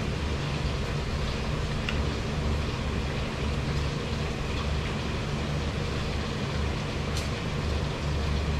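Steady low rumble with a hiss above it, wavering unevenly, and one faint click about seven seconds in.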